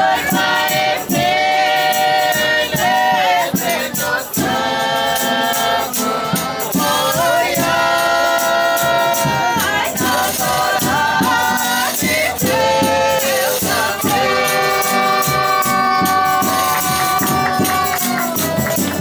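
Folia de Reis ensemble performing live: several voices singing long held notes in harmony over piano accordions, strummed guitars and a shaken tambourine. The sung lines swell and are held for a few seconds at a time, the longest near the end.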